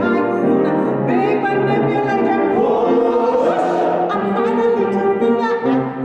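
A company of singers sings a show tune together over instrumental accompaniment.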